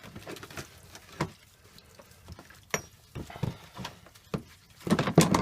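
Scattered clicks and clinks of metal winch parts being handled and rinsed in petrol. One has a brief metallic ring about three seconds in, and a busier run of knocks comes near the end.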